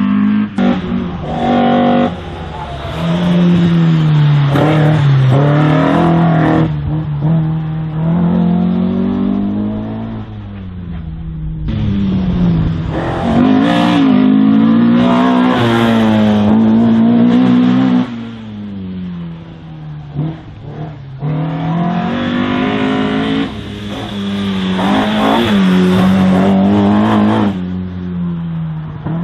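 Race car engine revving hard under full acceleration and backing off, its note climbing and dropping again and again as the car is driven flat out through an autoslalom course. It goes quieter twice where the driver lifts off.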